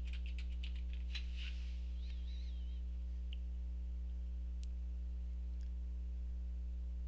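Computer keyboard typing, a quick run of keystrokes for about the first second and a half, then a few isolated clicks, over a steady low electrical hum.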